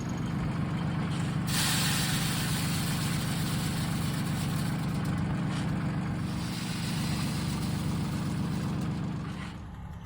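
Tractor engine running steadily while planting corn, with a broad hiss over it; the engine and hiss drop away sharply near the end.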